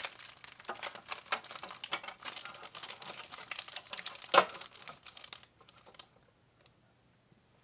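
Thin plastic bag crinkling and rustling with small clicks as a hard plastic RC truck cab body is handled, with one sharper knock about four seconds in; the rustling stops about five and a half seconds in.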